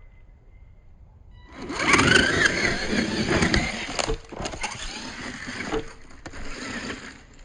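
Radio-controlled monster truck driving close by, its electric motor whining up and down in pitch over the noise of its tyres scraping over the ground, with a few sharp knocks. It starts about a second and a half in and fades near the end.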